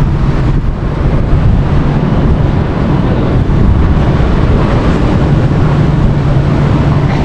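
Strong wind buffeting the microphone in a loud, continuous rumble, with a steady low hum underneath that fades out partway through and returns.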